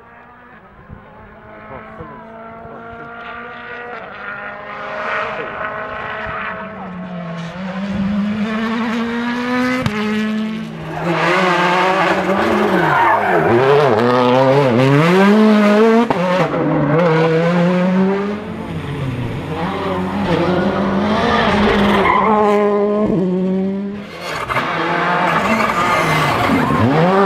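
Turbocharged four-cylinder rally car engines on a tarmac stage, several cars in turn. First one car approaches from far off, its engine growing steadily louder and rising in pitch. Then cars rev hard through a tight hairpin, the engine pitch swooping up and down as they brake, change gear and accelerate away.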